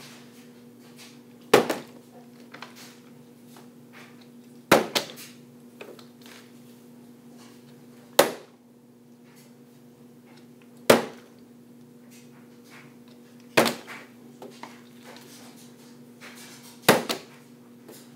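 Partly filled plastic water bottle being flipped and landing on a hard tabletop six times, about every three seconds: each landing is a sharp thud followed at once by a smaller bounce or tip. A faint steady hum runs underneath.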